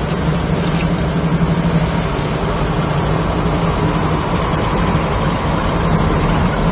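1968 Camaro's 350 Chevy small-block V8 running at a steady cruise through Flowmaster mufflers, heard from inside the cabin along with road and tyre noise. The car is described as nice and tight running, and the level stays even throughout.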